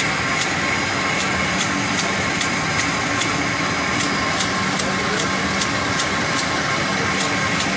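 Neck shrink-sleeve labeling machine for water bottles running steadily: a constant mechanical hum and hiss with a short high hissing tick repeating about two to three times a second.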